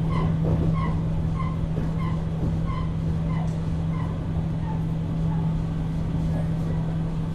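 Inside a JR West 475-series EMU motor car: a steady low hum over rumble, with a run of short, evenly spaced chirps, about one and a half a second, that fade out about five seconds in.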